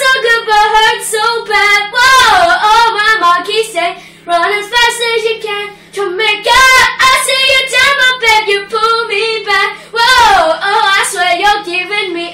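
A boy singing a cappella, with no accompaniment. He sings wordless held notes and runs, with a sweeping downward slide about two seconds in and another near the end.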